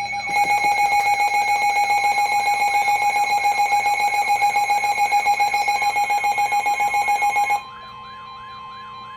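Electronic emergency alert tones: a loud, rapidly pulsing alarm tone that cuts off suddenly about seven and a half seconds in, leaving a quieter steady tone with a fast repeating warble. They are the alert for a new tornado warning.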